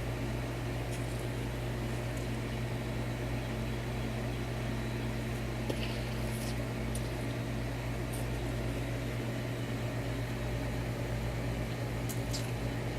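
A steady low machine-like hum, like a fan or household appliance running, with a few faint ticks scattered through it.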